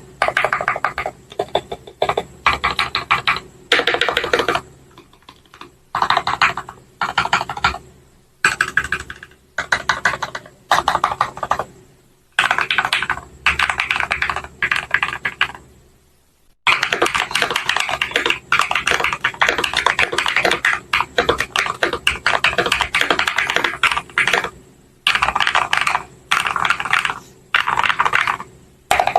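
Mechanical keyboard with Gateron Pro Milky Yellow linear switches being typed on, in quick runs of keystrokes broken by short pauses, with one longer unbroken run in the second half.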